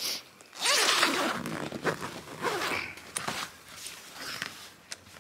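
A long zipper on a large swag carry bag being pulled open in several strokes, the longest and loudest starting just under a second in.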